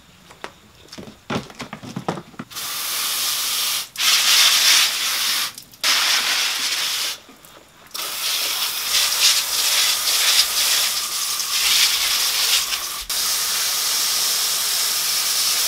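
A few plastic knocks and rattles, then a garden hose spray nozzle hissing as it sprays water. It cuts off briefly three times, the longest about seven seconds in, and runs steadily over the last few seconds.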